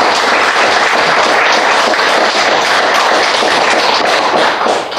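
Audience applauding: dense, steady clapping that dies away at the end.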